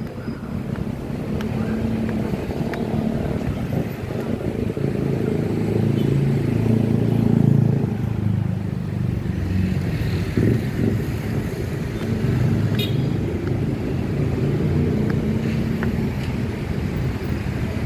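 Road traffic: vehicles passing on a city street, a steady low rumble that swells about halfway through.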